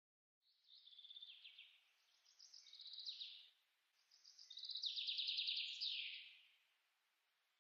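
A songbird singing three quick trilled phrases, each dropping in pitch at its end, faint over a light background hiss.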